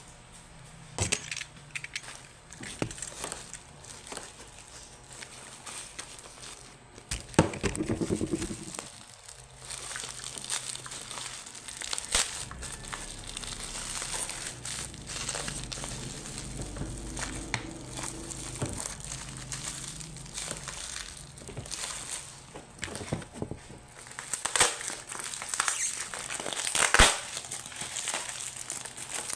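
Makeup packaging being handled and unwrapped: irregular crinkling and crackling of wrapping, with louder bouts about a quarter of the way in and again near the end.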